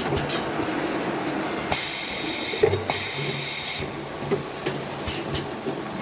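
Automatic air-rinsing bottle washer running: its conveyor rattles steadily while compressed-air nozzles blast the bottles with a loud hiss for about two seconds, broken briefly in the middle. Occasional sharp clinks of glass bottles knocking together on the conveyor.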